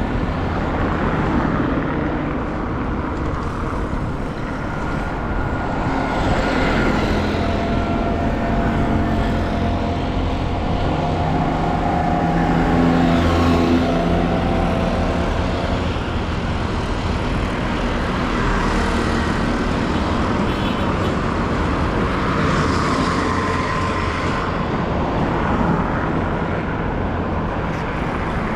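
Street traffic: vehicle engines running and passing in a steady mix of road noise, with a few engine tones rising and fading as vehicles go by.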